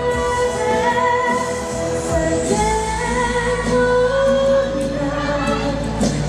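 A woman singing a pop ballad live with instrumental backing. She holds long notes and slides between pitches.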